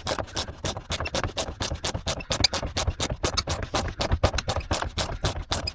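Socket ratchet wrench clicking rapidly as it is worked on dashboard trim fixings, a quick, uneven run of about eight clicks a second.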